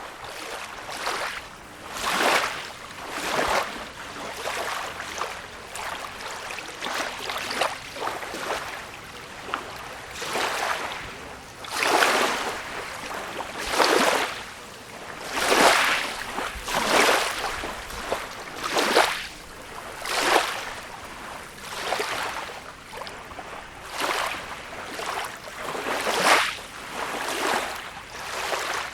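Small sea waves lapping and splashing, one wash after another every second or two, some louder than others.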